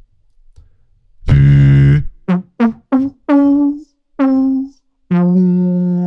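Beatboxer's voice into a microphone making pitched, instrument-like notes: one long low note about a second in, then five short notes, each opening with a quick downward slide, then a long held low note near the end.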